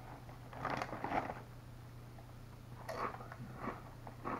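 Crunching and chewing Doritos Flamin' Hot Limón tortilla chips: a cluster of crunches about half a second in and another run of crunches near the end, over a low steady hum.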